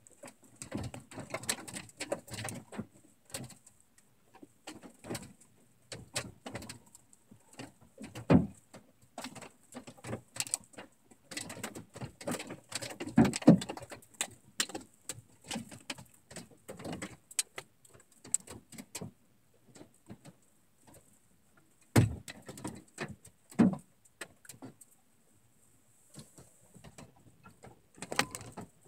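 Hailstones striking the metal body and glass of a pickup truck, heard from inside the cab: scattered irregular clicks and pings with a few heavier thuds, easing off briefly twice in the second half.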